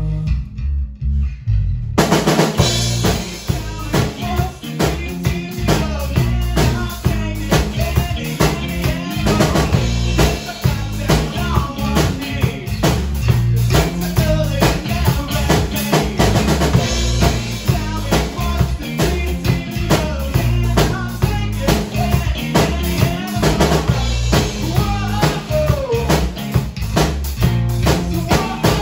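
Rock band playing live: drum kit, bass guitar and electric guitar. The first two seconds are thinner, mostly drums and bass; then the full band comes in louder and brighter and plays on with a steady driving beat.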